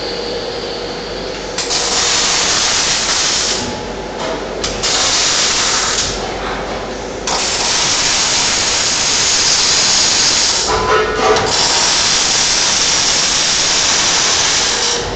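Panasonic robotic welding arc, a loud steady hissing crackle that runs in several stretches of a few seconds, dropping away briefly between welds.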